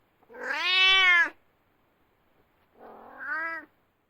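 Domestic cat meowing twice: a long meow of about a second that rises and falls in pitch, then a shorter, quieter meow about two seconds later.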